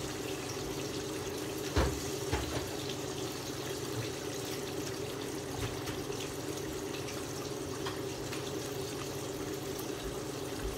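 Tilapia fillets frying in hot oil: a steady sizzle with small crackles over a low steady hum. There is a single thump about two seconds in.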